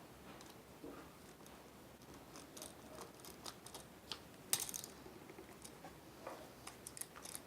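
Scattered small clicks and metallic clinks from handling a three-way light switch and its wires while connecting them to its terminals, the loudest a sharp click about four and a half seconds in.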